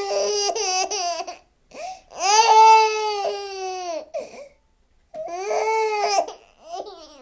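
Baby crying: three long wails with short breaks for breath between them. The middle wail is the longest, about two seconds, and drops in pitch at its end.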